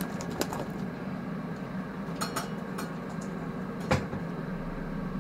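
A few scattered metallic clinks and knocks from a stainless steel colander of parboiled potatoes being handled, the loudest about four seconds in, over a steady low hum.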